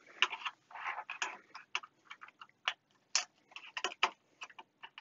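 Screwdriver working a screw out of a foot on the back of a 1990 Soviet C1-93 oscilloscope's case, breaking the red seal over the screw head. It makes a run of irregular sharp clicks and short scrapes, with a brief scraping stretch about a second in.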